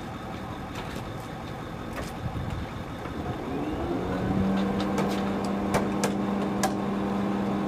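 A machine's motor winds up in pitch about halfway through, then holds a steady low hum over a background of machinery noise. A few sharp clicks sound near the end.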